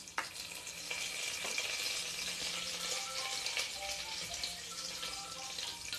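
Curry leaves and mustard seeds sizzling in hot oil in a pressure cooker, a steady sizzle with fine crackles as the tempering fries.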